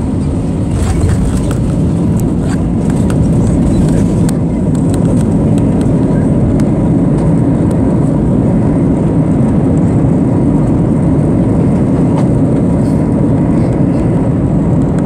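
Airbus A321 cabin noise during the landing roll on a wet runway: a loud, steady low rumble of the engines and wheels. A few faint rattles come through in the first few seconds.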